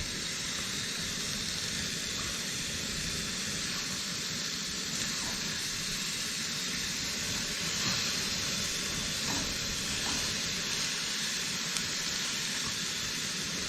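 Ground-beef burger patty sizzling on a hot pan grill: a steady hiss with a few faint ticks.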